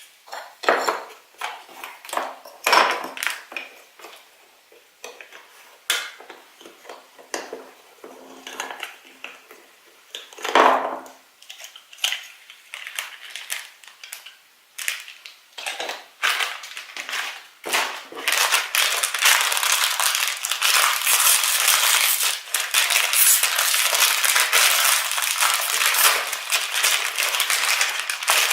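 Hands opening toy packaging: scattered clicks and rustles of plastic, then, from about two-thirds of the way in, dense continuous crinkling as wrapping is torn and scrunched open.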